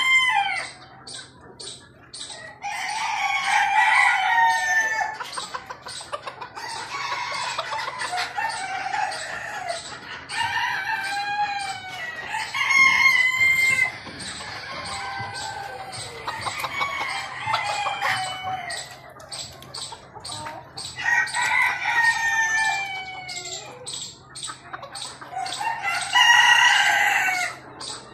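Chickens in a cage calling again and again: long crows that fall in pitch come every few seconds, with clucking between them. A steady low hum runs underneath.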